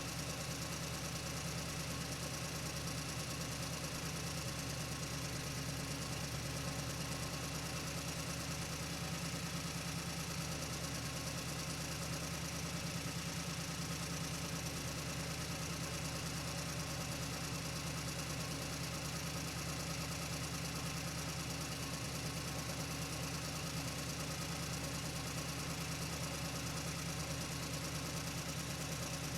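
Truck engine running steadily as the truck drives, its note holding at one even pitch and loudness with no gear changes or revving.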